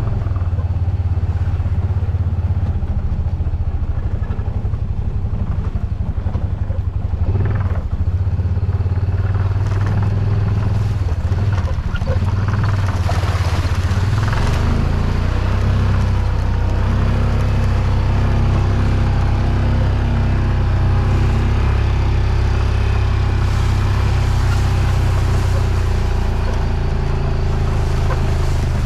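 A vehicle's engine running steadily under way, a low drone with some rattling and clatter over it.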